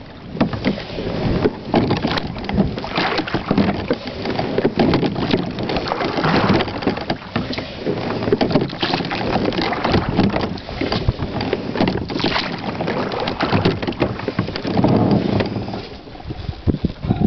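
Slide-seat rowing in a Whitehall Spirit Solo14 with carbon-fibre oars: the oars working in their oarlocks and the blades dipping in calm water, heard as a steady rushing noise with irregular clicks and knocks.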